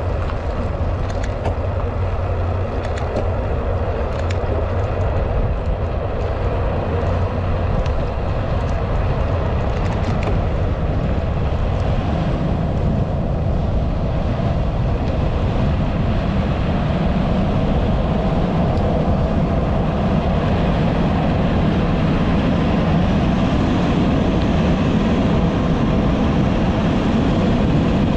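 Wind rushing over a helmet-mounted camera's microphone while cycling along an asphalt road: a loud, steady, deep rush that grows a little louder toward the end. A few faint clicks in the first few seconds.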